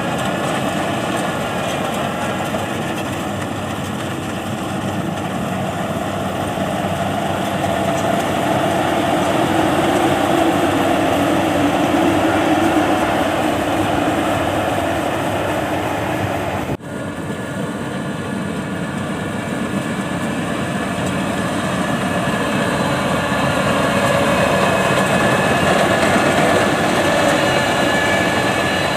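Rice combine harvester running steadily under working load, its engine and machinery making a continuous mechanical drone with held tones. About seventeen seconds in there is a brief drop in the sound, after which the same running continues.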